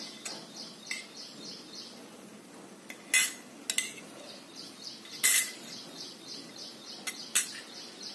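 A metal utensil clinks against a cooking pan several times, loudest about three and five seconds in, over sugar syrup bubbling in a nonstick kadhai.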